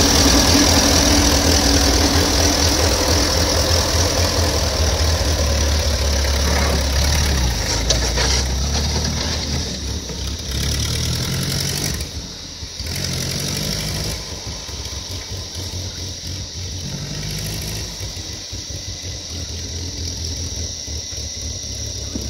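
Ferguson TE20 'grey Fergie' tractor's four-cylinder engine running steadily, loud and close at first, then fading as the tractor drives away.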